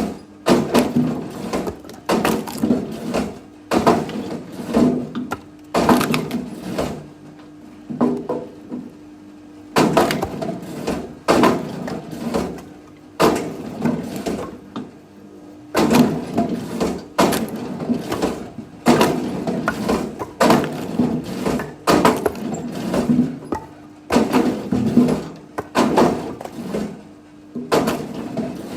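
Firewood being split and handled: repeated wooden knocks and cracks in irregular clusters, with short pauses between.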